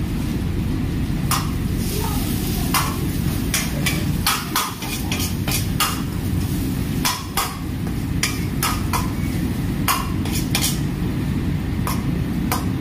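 Steel ladle clanking and scraping against an iron wok in irregular sharp strikes as egg is stirred and broken up, with frying sizzle over a steady low roar.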